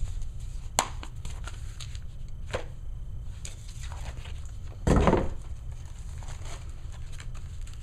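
Paper and card game pieces being handled, rustling and crinkling with scattered small clicks, and one louder rustle about five seconds in.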